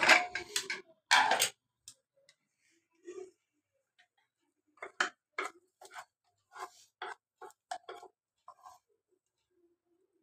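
Hawkins Classic aluminium pressure cooker being opened, with a short hiss of leftover steam and the clatter of the lid in the first second or so. About five seconds in comes a run of about ten short knocks, two or three a second, as a wooden spatula mashes the boiled bottle gourd against the inside of the pot.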